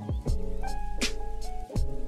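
Background music with a steady drum beat and sustained melodic notes.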